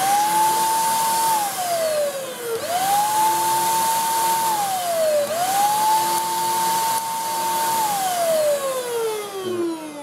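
Shark DuoClean vacuum cleaner's motor being switched on and off with its repaired power switch, which works. It runs with a steady whine, winds down about a second in, comes back up before stopping, winds down again near the middle, revs up once more, and is winding down slowly through the last couple of seconds.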